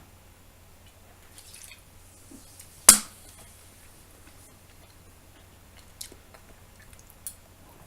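Quiet chewing of raw button mushrooms, with one sharp loud click about three seconds in and two smaller clicks later on.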